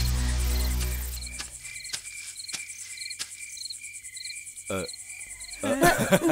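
Crickets chirping in short, evenly repeated pulses. A low music drone fades out over the first second or so, a few sharp clicks sound, and a brief vocal sound comes twice toward the end.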